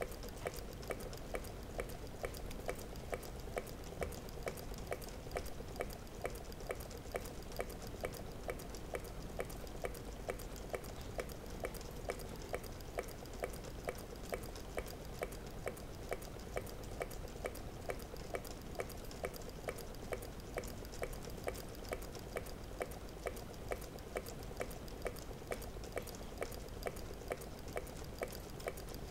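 Meccano-built Stirling engine running steadily, with a regular click about three times every two seconds over a continuous hum.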